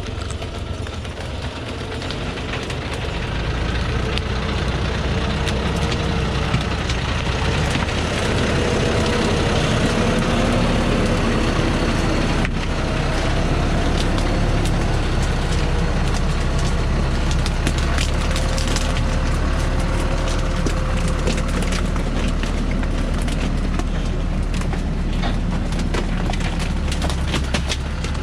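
Thaco Forland diesel truck's engine running under load as it creeps over cut acacia branches, twigs cracking and snapping under the tyres. The engine grows louder a few seconds in and its pitch wavers a little.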